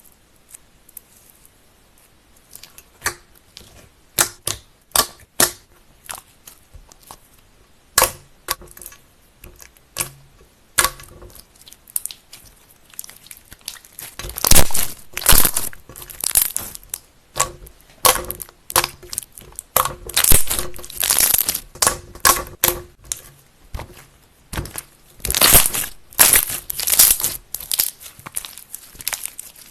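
Slime being squeezed, poked and stretched by hand, giving sharp pops and crackles. The pops are spaced out at first, then come in dense crackling bursts from about halfway.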